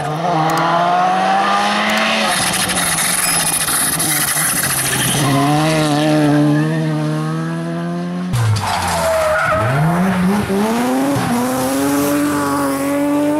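Rally car engines at full throttle on loose surfaces: a Volkswagen Polo rally car revving hard, its note rising and falling through gear changes as it slides in the gravel. About eight seconds in the sound cuts abruptly to a BMW 3 Series rally car revving up as it slides through a dirt corner.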